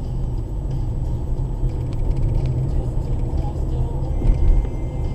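A car's steady road and engine rumble as picked up inside the cabin by a dashcam, with a low thump about four seconds in.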